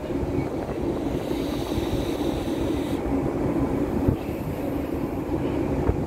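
Steady low drone of a cruise ship under way, with wind rumbling on the phone's microphone; a brief higher hiss rides over it about a second in.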